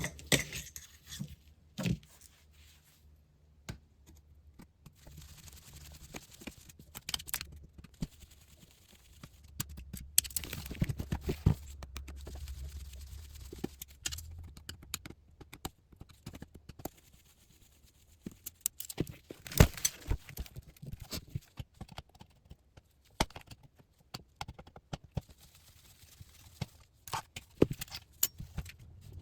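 Irregular clicks, clinks and short scrapes of screws being taken out of an LCD monitor's steel frame, with small metal parts knocking together.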